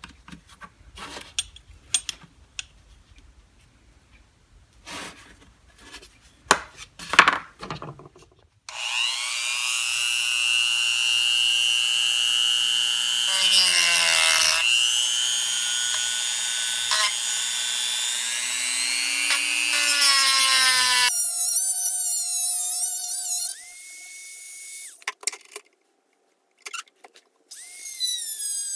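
Knocks and clicks of handling tools and workpiece, then a power tool's motor starts about nine seconds in. It runs with a loud whine for about twelve seconds, its pitch dipping and recovering as it is loaded. After it stops, a quieter wavering high whine comes and goes near the end.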